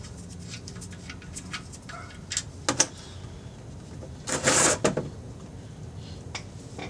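Oil drain plug being backed out by hand and the engine oil starting to drain into a drain pan: scattered small clicks, a sharp click a little before three seconds in, and a short rush of noise about four and a half seconds in.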